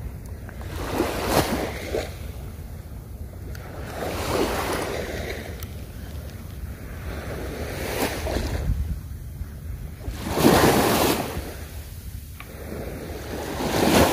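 Small waves breaking and washing up on a sandy shore in swells every few seconds, the biggest about ten seconds in, over a low rumble of wind on the microphone.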